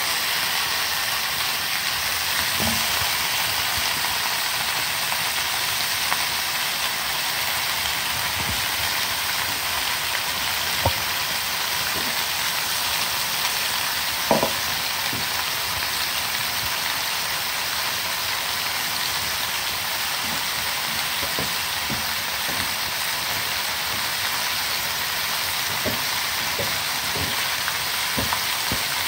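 Peri peri-marinated chicken leg quarters frying in shallow oil in a frying pan: a steady sizzle with scattered small pops and crackles.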